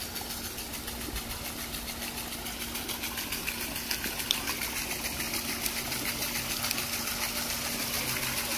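Decorative waterwheel turning in a pond, with water splashing and churning at its base, a steady hum and a fast, even ticking. The sound grows gradually louder.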